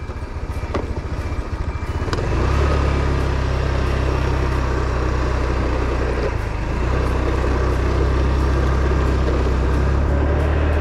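Small motor scooter engine running as it pulls away and rides along. The engine note rises about two seconds in, dips briefly a little past the middle, then holds steady.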